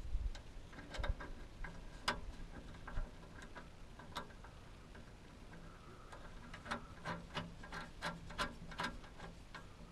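Small metal clicks and ticks of a hand tool working a nut and bolt as a bracket is fastened, irregular at first and coming faster, about three a second, in the second half.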